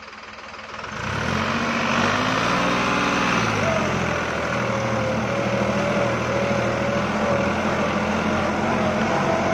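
Diesel engine of a New Holland 5620 Plus tractor working in wet soil. It comes up to a steady pull about a second in and then runs evenly, with a thin steady whine above the engine note.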